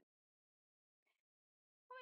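Near silence, broken only by one faint, brief sound about a second in.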